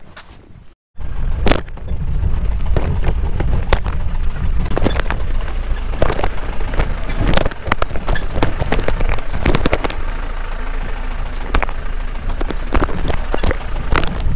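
Jeep driving over a rough off-road track: a heavy low rumble with frequent sharp knocks and rattles as it jolts. The rumble starts suddenly about a second in.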